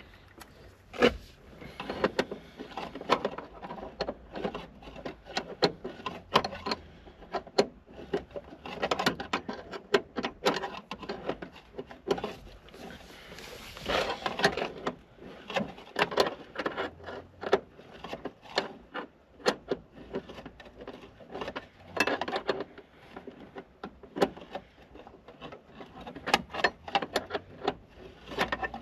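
Irregular clicks, clinks and scrapes of a spanner working on a stiff nut on a car's accelerator pedal mounting, with a short rustle about halfway through.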